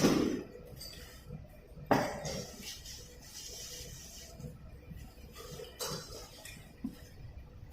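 Metal clinking from handling a screw air compressor's spin-on oil filter during a filter change: two sharp knocks with short ringing about two seconds apart, then a few lighter clicks.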